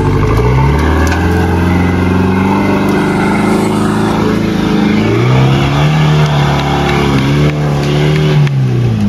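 Mahindra Thar 4x4's engine revving under load as it drives up a rough dirt trail. The pitch climbs, dips about four seconds in, climbs again and holds, then falls away near the end.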